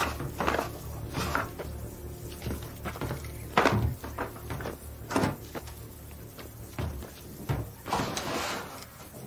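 Wooden pallets being pulled aside and set down: a series of irregular wooden knocks and scrapes, the loudest about three and a half seconds in, over a low steady hum.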